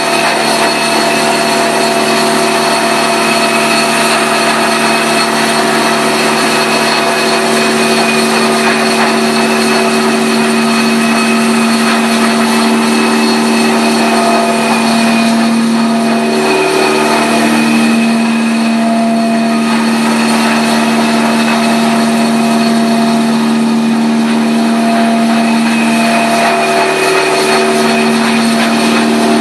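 Rotary carpet-extraction tool running with its vacuum suction: a loud, steady motor drone and whine over a rushing hiss. The pitch dips briefly twice as it works the carpet.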